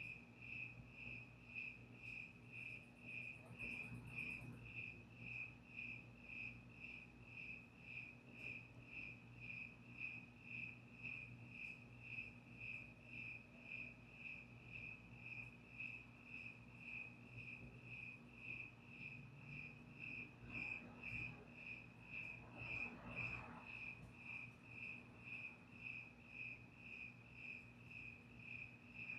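Crickets chirping faintly and steadily, a regular pulse of about two high chirps a second, over a faint low hum. A brief high buzz joins in about three seconds in.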